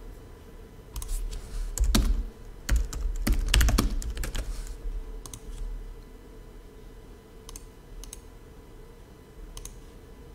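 Typing on a computer keyboard: a quick run of keystrokes about a second in, lasting a few seconds, then a few single key presses, over a low steady hum.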